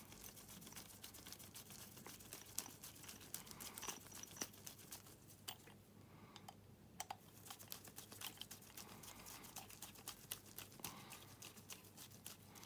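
Screwdriver tightening the float-bowl screws on a small pocket-bike carburetor: faint, irregular small clicks of the tool and metal parts.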